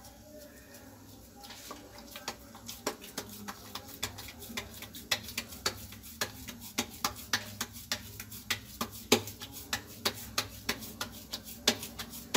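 Wet maize-flour dough being patted flat between the palms by hand to shape a makki roti: a steady run of short slaps, about three a second, starting about a second and a half in.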